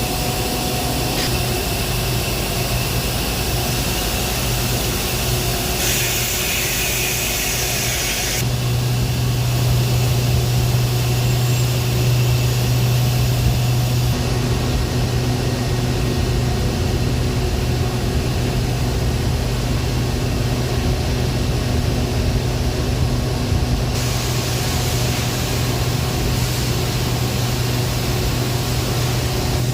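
Heavy industrial machinery running with a steady, loud low hum and a hiss over it; the hiss changes abruptly several times.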